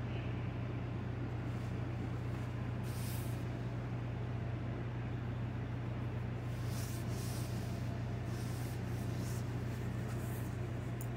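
A steady low hum, with a few faint, short brushing and rustling sounds from hands sprinkling flour over bread dough and handling the dough and a cloth.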